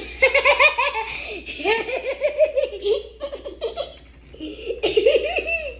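Hearty, high-pitched laughter in three bouts of quick repeated "ha" pulses, with a short lull before the last bout near the end.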